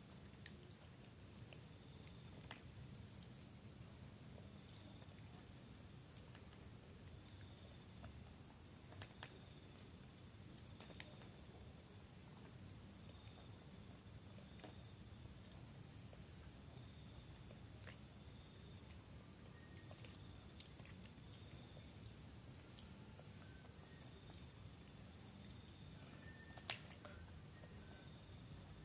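Faint steady chirring of crickets in a night chorus, with a few faint clicks and taps, the sharpest near the end.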